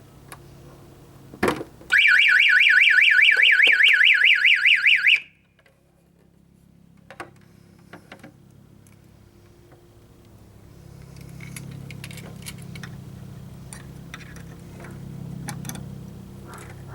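A fire alarm sounding a fast electronic warble, its tone sweeping up and down about six times a second. It starts just after a click, runs for about three seconds, then cuts off suddenly. Later a low hum with scattered clicks rises.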